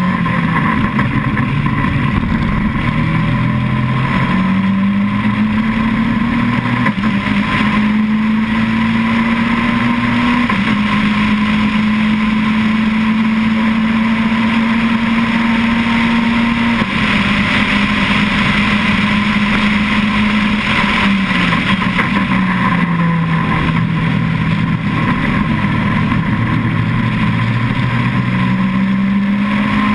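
Caterham Seven's 2.1-litre four-cylinder race engine at full speed, heard from the open cockpit. The engine note climbs in steps over the first ten seconds, holds steady at high revs, falls away in two steps after the middle as the car slows, and climbs again near the end.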